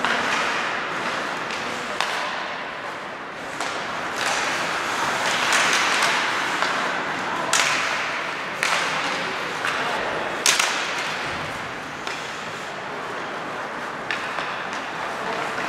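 Ice hockey play in a rink hall: skate blades scraping and carving on the ice in swelling rushes, with about half a dozen sharp hits of stick and puck, the loudest about ten and a half seconds in.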